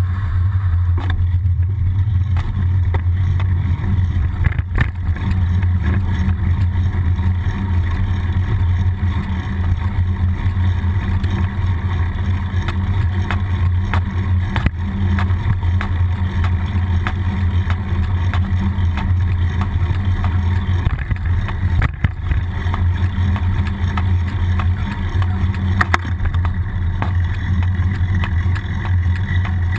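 Steady low rumble of wind and road noise picked up by a bicycle-mounted GoPro while riding, with scattered clicks and knocks as the bike rolls over bumps.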